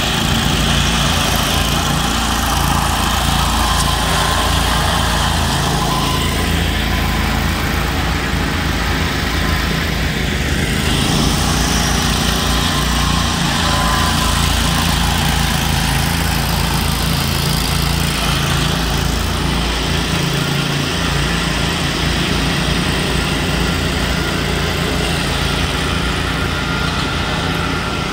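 Ride-on double-rotor power trowel's engine running steadily while its blades float and finish fresh concrete.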